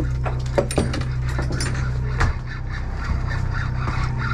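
Steady low hum of the boat's engine, with scattered clicks and knocks of gear being handled on deck.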